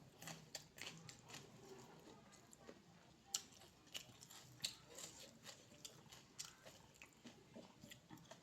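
A person chewing food close to the microphone, with frequent irregular soft mouth clicks and smacks.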